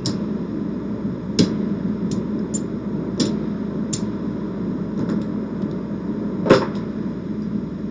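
Casino chips clicking as they are stacked and set down on a craps table layout: about seven short, sharp clicks, the loudest near the end, over a steady background hum.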